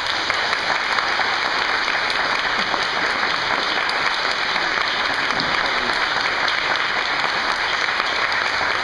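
Audience applauding, breaking out at once and holding steady.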